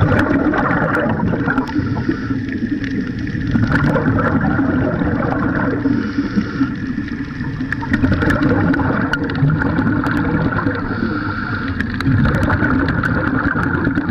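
Steady underwater rumble and gurgling of a scuba scooter with its air supply bubbling, heard from underwater, with scattered small clicks.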